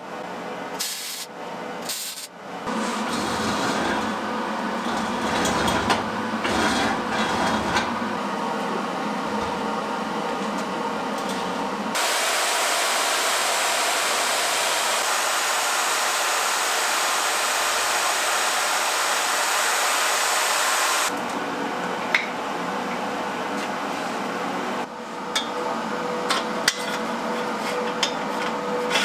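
Metal fabrication sounds in sequence: first an uneven stretch of noisy work, then a magnetic-base drill running steadily for about nine seconds as it bores steel, then a few light metal clinks near the end.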